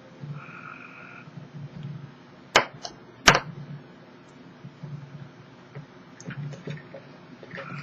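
Metal butane lighter's ignition clicking twice, two sharp clicks about two-thirds of a second apart.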